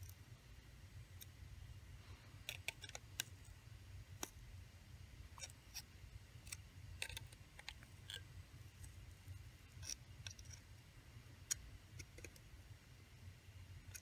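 Faint, scattered clicks of needle-nose pliers gripping and twisting the small metal tabs that hold a calculator's circuit board, over a low steady hum.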